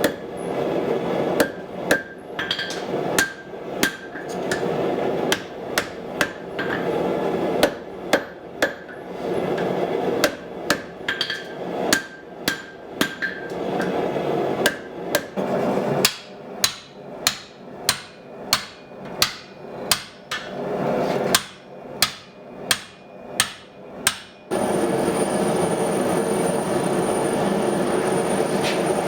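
Hand hammer striking steel on an anvil while forging an axe head: runs of blows with short pauses, then a steady run of about two blows a second that stops several seconds before the end. A steady rushing noise sounds under the blows and carries on alone once the hammering stops.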